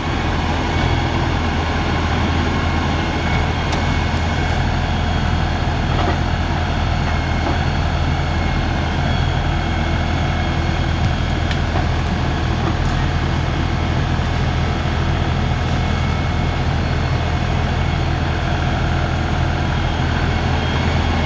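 42 hp LS tractor's diesel engine running steadily at a constant pitch.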